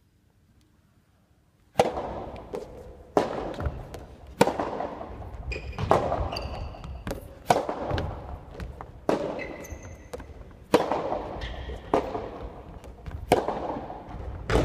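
A soft tennis rally: a soft rubber ball struck back and forth by rackets, about ten sharp hits roughly one and a half seconds apart, starting about two seconds in, each ringing in the echo of a large hall. Shoes squeak on the wooden court floor between hits.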